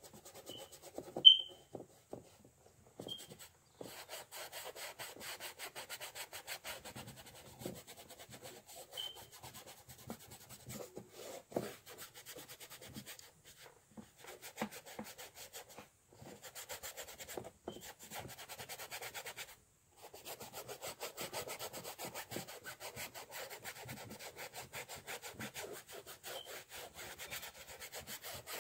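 Paintbrush scrubbing acrylic paint across a canvas in quick back-and-forth strokes, with a few short pauses. About a second in there is a brief, sharp high-pitched chirp, the loudest sound.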